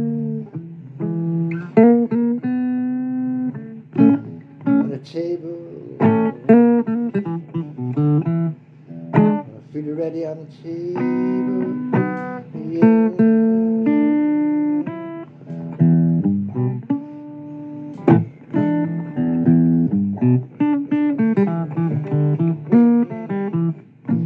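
Blues guitar music: plucked single notes and chords played in a steady run of phrases.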